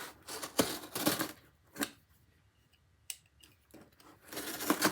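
Utility knife slicing through a cardboard box in short scratchy strokes, with a quiet pause of about a second in the middle.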